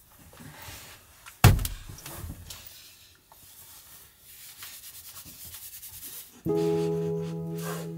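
A single hard thump about a second and a half in as a head strikes the camper van's overhead cabinet, followed by faint rustling. Soft piano music comes in near the end.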